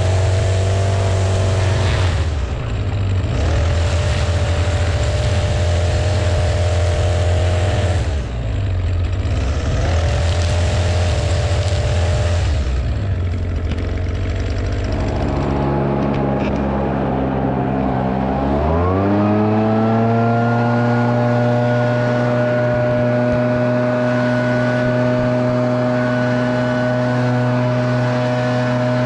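String trimmer engine running, easing off twice. Then a small handheld power-equipment engine spins up and holds a steady high speed.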